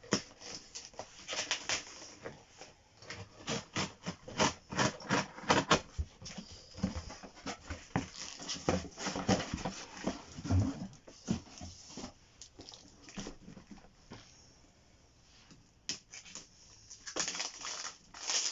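Jigsaw's cardboard box and packaging being opened and handled: irregular crinkles, taps and knocks, dying down for a few seconds before a last flurry near the end.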